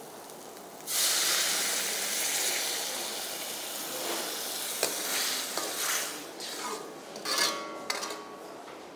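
Water poured from a steel pot into a kadai of hot frying masala: a loud sizzle starts about a second in and slowly dies down. Near the end a metal ladle stirs and clinks against the pan.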